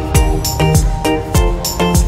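Background music with a steady beat: a deep kick drum about twice a second under repeated chords and crisp high percussion.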